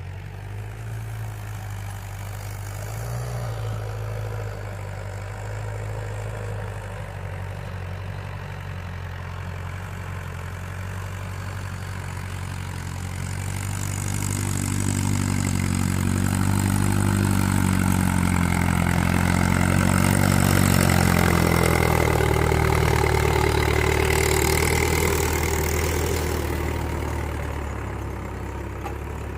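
Mahindra Yuvo 575 DI tractor's four-cylinder diesel engine running steadily. It grows louder about halfway through and eases off again near the end.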